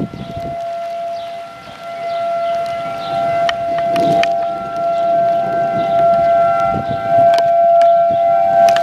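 Outdoor tornado warning siren sounding one long steady tone, held at one pitch, with scattered sharp clicks over it.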